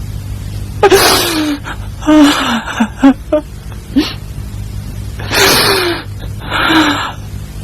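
A Yue opera performer's stylised weeping: about half a dozen breathy sobbing cries, each sliding down in pitch.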